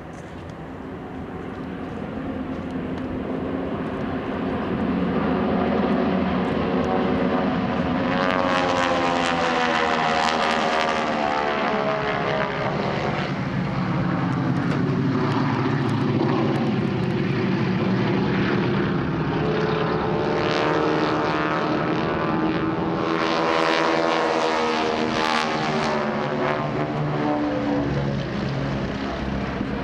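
Four North American Harvard trainers flying overhead in formation, their nine-cylinder Pratt & Whitney Wasp radial engines and propellers droning. The sound grows louder over the first few seconds and then stays loud, with the engine note bending in pitch as they pass, around ten seconds in and again about twenty seconds in.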